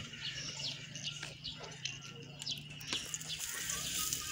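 Small birds chirping, many short falling chirps, over a low steady hum that stops about three seconds in, with a few faint knocks.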